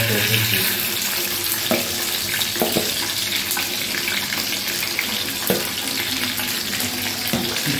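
Slices of food sizzling in hot oil in a karahi, a steady crackling hiss. A few light knocks of a metal spoon against the pan come through as the pieces are pressed and turned.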